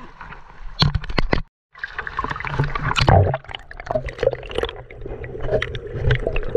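Underwater sound of river stones being shifted by hand: dense clicking, knocking and scraping of rocks, with water gurgling and a low steady hum. A few sharp splashes about a second in, then a brief cut to silence.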